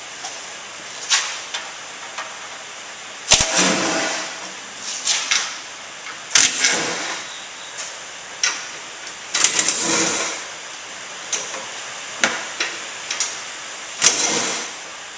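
Front splash shield being worked off a truck: a series of sharp knocks and scraping, rattling clatters, the loudest a heavy thump a little over three seconds in. Behind it runs the steady hiss of heavy rain on an uninsulated garage roof.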